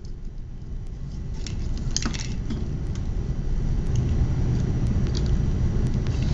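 Light clicks and rattles of wire leads and clips being connected to a small DC motor and its batteries, over a steady low rumble that grows slightly louder.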